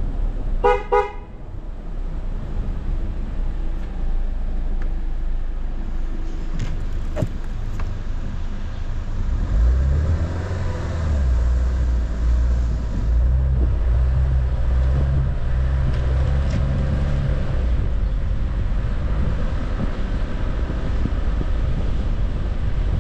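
Car driving slowly over packed snow, with steady engine and tyre noise heard from inside the car. A short car horn toot sounds about a second in. A stronger low engine drone runs from about ten to seventeen seconds in.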